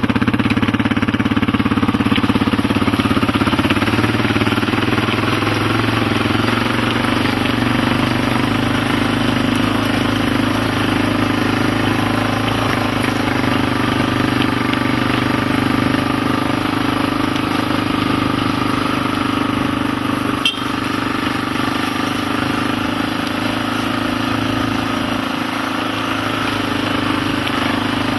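Engine of the camera's chase motorbike running steadily at an even speed, with a single brief click about twenty seconds in.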